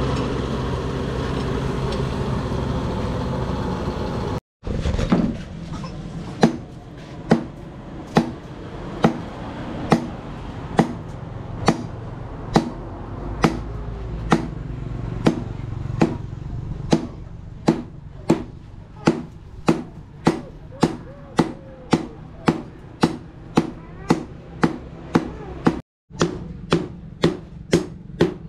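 A few seconds of music, then a hammer striking hot rebar on an anvil in a steady rhythm. Each blow rings sharply. The blows come about once a second, then quicken to nearly two a second partway through.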